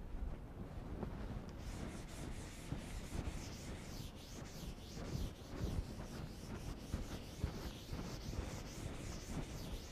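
Chalk writing on a chalkboard: short, scratchy strokes in an uneven run, beginning about a second and a half in.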